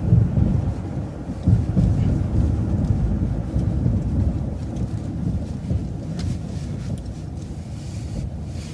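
Low rumble of engine and road noise heard from inside a moving vehicle as it makes a right turn, with a couple of louder thumps in the first two seconds.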